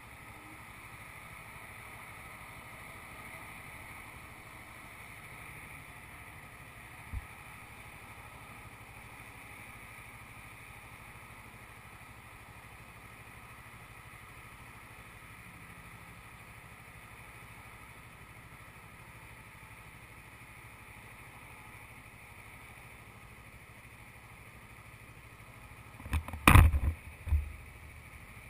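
Motorcycle engine idling steadily. One short thump about seven seconds in, and a brief cluster of loud thumps near the end.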